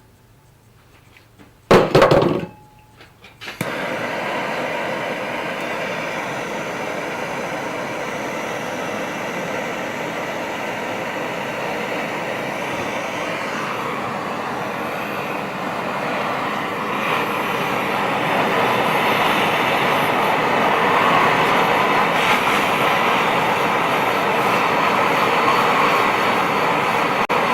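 One hammer blow on steel with a short ring. About a second and a half later, a gas burner starts up with a steady roar that grows a little louder partway through, heating the steel for bending.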